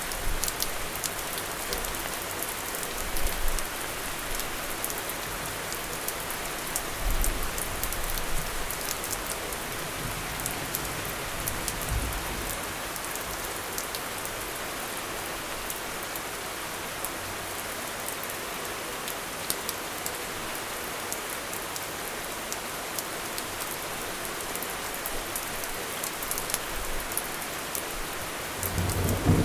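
Steady rain falling, with many sharp drops and drips ticking through it and a few soft low swells. A thunder rumble starts building near the end.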